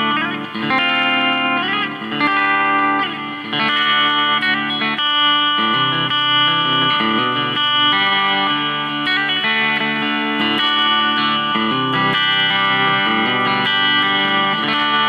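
Electric guitar, a semi-hollow Telecaster-style guitar with P90 pickups, played clean on the bridge pickup: a run of chords picked and left to ring, changing every second or so.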